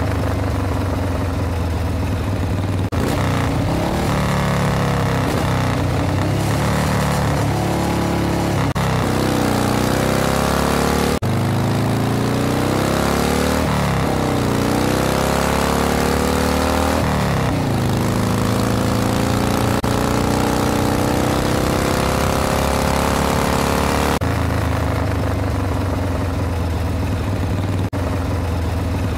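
Car engine running and revving, its pitch rising and falling several times between steadier stretches.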